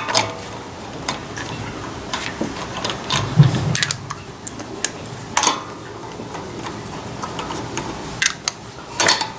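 Scattered metallic clicks and clanks of parts and tools being handled, with a dull low thud about three and a half seconds in. The sharpest clank comes about five seconds in.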